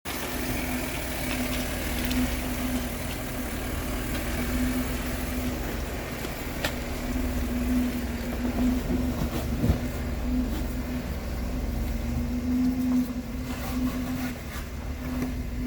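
Four-door Jeep Wrangler's engine running steadily at low revs, a constant low drone, with a couple of short sharp knocks partway through.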